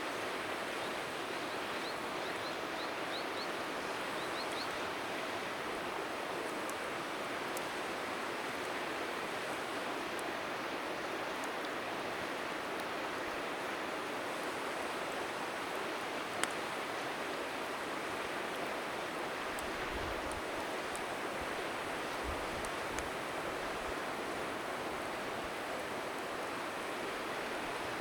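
Steady rushing of river water, with a bird chirping several times in quick succession early on and occasional faint crackles from a wood bonfire, one sharper pop about halfway. A few low wind buffets hit the microphone near the end.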